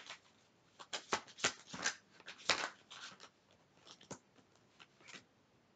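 Tarot cards being shuffled and handled: a run of short, sharp papery snaps and rustles, thinning out to a few single clicks after about four seconds.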